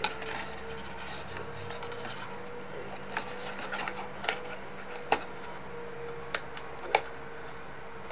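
Die-cut cardstock being handled and the backing peeled off its double-sided tape: soft rustling with about six scattered light clicks and taps. A faint steady hum runs underneath.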